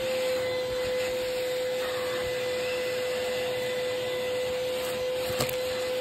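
Vacuum cleaner running steadily, a single high motor whine over the rush of air, as its hose nozzle works over a sofa's fabric seat. One short click near the end.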